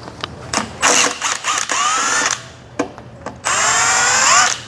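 Power driver running twice, about two seconds each time, its whine rising in pitch as it spins: backing out the bolts of the No. 4 connecting-rod bearing cap on an engine with a worn metal bearing. There are a couple of short tool clicks between the runs.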